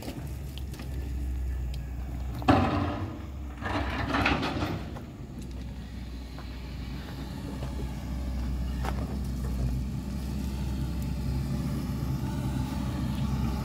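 An engine running steadily with a low hum. A couple of brief, louder rustling noises come about two and a half and four seconds in.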